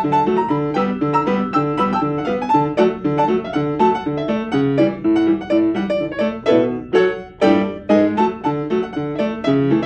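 Solo piano playing a tune: a steady, repeating left-hand accompaniment of bass notes and chords under a right-hand melody, with a brief break about seven seconds in followed by a strong chord.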